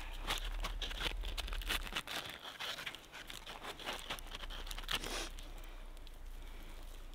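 Hands pressing pieces of bark into crusty snow, with crunching snow and scraping, rustling bark that stops about five seconds in.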